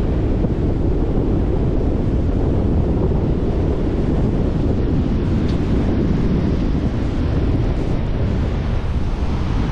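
Strong onshore wind buffeting the microphone in a steady low rumble, with surf breaking on the beach underneath it.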